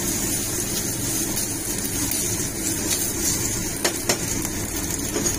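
Fusilli and pine nuts sizzling steadily in a hot skillet while being stirred with a spatula. The spatula knocks or scrapes against the pan a couple of times about four seconds in.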